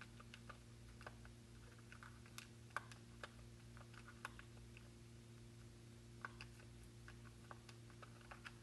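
Faint, irregular taps of calculator keys being pressed as a division is entered, with a pause of about two seconds midway, over a low steady hum.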